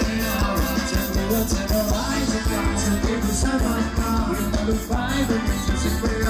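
Live band music with a steady beat: a singer over electric guitars, keyboard and drums, played loud through a stage PA.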